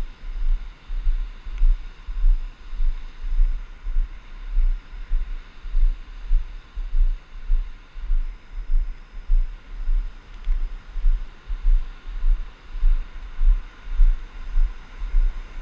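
Storm wind buffeting the microphone in low, irregular thumps, several a second, over a faint hiss of rain and surf.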